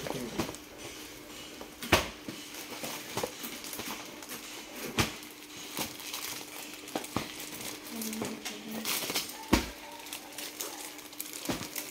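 Clear plastic saree wrappers crinkling and cardboard saree boxes being handled, with several sharp knocks and taps as the boxes are shifted. A faint steady hum runs underneath.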